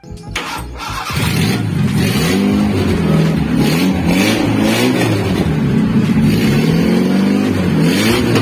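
Toyota 4K four-cylinder engine of an owner-type jeep running and being revved, its pitch rising and falling over and over.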